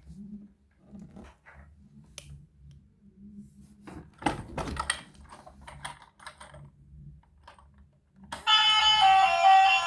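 Scattered light clicks and knocks, as from plastic toy vehicles being handled. About eight seconds in, a loud electronic toy sound of several steady tones starts.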